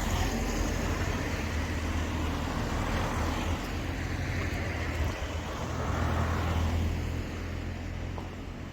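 Road traffic: passing vehicles' engines and tyres, a steady low rumble that swells and eases.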